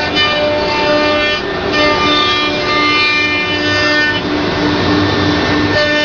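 CNC router cutting MDF: a steady, loud machine whine made of several tones over a rushing noise, with some of the tones switching on and off every half second or so as the machine moves.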